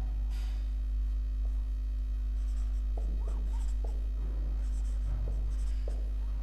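Marker writing on a whiteboard: faint, short, scattered strokes as words are written out, over a steady low hum.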